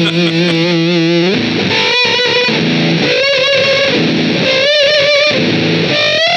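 Electric guitar through a JPTR FX Warlow, a Big Muff-style fuzz pedal, set for lots of gain: held, heavily distorted notes with a wide vibrato, moving to a new note every second or so with short breaks between phrases.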